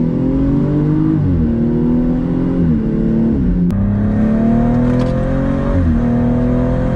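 Tuned BMW M135i's 3.0-litre N55 straight-six, with a 300-cell sport catalyst and M Performance exhaust, accelerating under load. The revs climb steadily and drop back sharply at each gear change, several times over.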